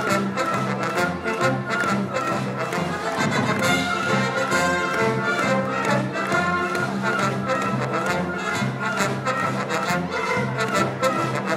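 High school brass band playing a medley: held brass notes over a repeating low bass line, with percussion keeping a steady beat.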